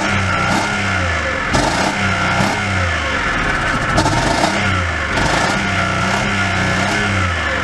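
A hip-hop beat with a repeating bass line plays over a Chevrolet Impala's engine revving.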